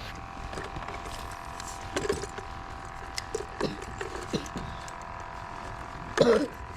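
Light, irregular mechanical clicking and ratcheting over a steady two-pitch hum, with a brief voice about six seconds in.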